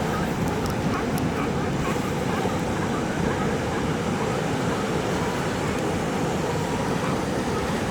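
Ocean surf washing steadily against a rocky shore, a constant rushing noise with no single wave standing out.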